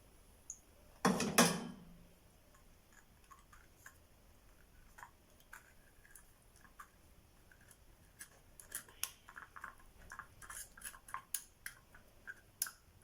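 Kitchen utensils handled against a pot: one loud knock about a second in, then a run of small clicks and scrapes in the second half.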